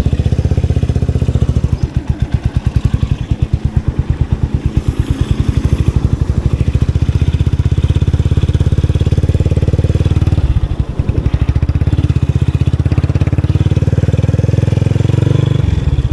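Motorcycle engine running with a fast, even firing pulse. Its sound dips and picks up again briefly about ten and a half seconds in, and again near the end.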